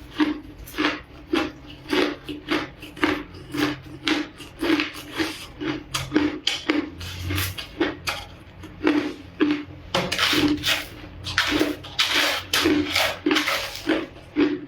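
Ice cubes being crunched between the teeth close to the microphone, about two chomps a second in a steady chewing rhythm, becoming denser and louder after about ten seconds.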